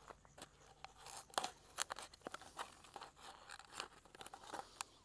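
A hand-held knife slicing a strip from a plastic bottle, with faint scattered crackles and crinkling of the plastic.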